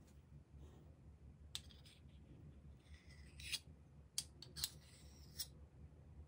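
Metal spoon scraping and clicking against a small bowl while scooping sour cream: a handful of faint, sharp clicks with a short scrape.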